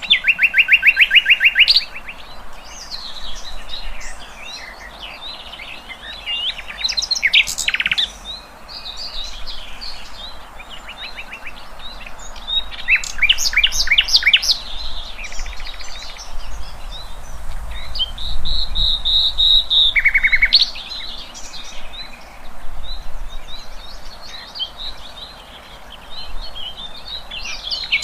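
Songbird song of the kind used as a tutor recording for contest birds: a loud, varied run of rapid trills, quick chirps and slurred whistles, with a high whistle held for about two seconds around two-thirds of the way through.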